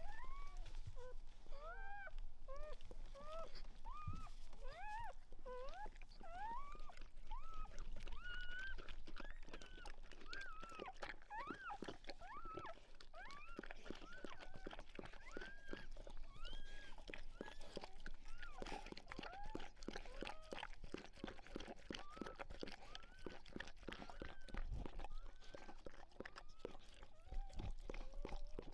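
Newborn Weimaraner puppies squeaking in short rising-and-falling peeps, several a second at first and thinning out later. From about a third of the way in, wet licking and chewing clicks from the mother tearing open and licking a newborn puppy's amniotic sac.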